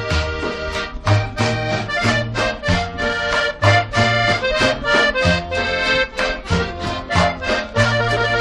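Instrumental passage of an accordion-led Latin dance song: an accordion plays the melody over a bass line and a quick, steady percussion beat, with no vocals.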